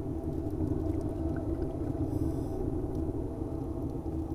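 A steady low underwater rumble, an even drone with a faint steady hum in it.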